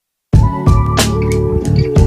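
Background music with a beat of sharp drum hits over a bass line, starting suddenly about a third of a second in.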